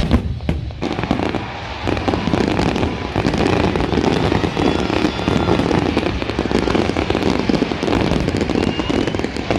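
Fireworks going off continuously: a dense stream of bangs and crackling, with a whistling rocket rising near the end.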